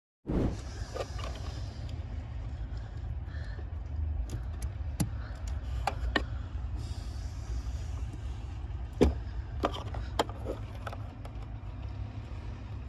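Sharp plastic clicks and taps from fuses being worked with pliers in a car's interior fuse box. The loudest click comes about nine seconds in, over a steady low rumble.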